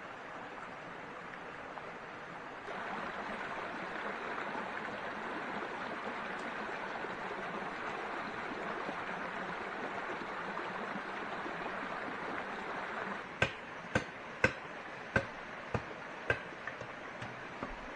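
Steady rushing water noise, a little louder through the middle. Near the end comes a run of about nine sharp knocks, roughly two a second, fading as they go.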